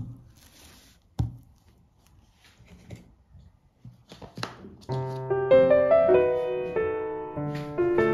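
A couple of sharp knocks and faint rustling, then soft piano music starts about five seconds in.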